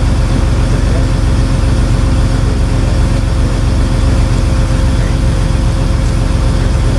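Truck engine running steadily at an unchanging speed: a low drone with a few steady tones over it.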